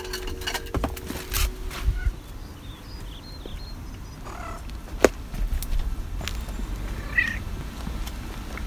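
Domestic cat meowing briefly, once about four and a half seconds in and again about seven seconds in. Before that come a few knocks on wood in the first two seconds as the cat climbs down a wooden ladder, and a single sharp click about five seconds in.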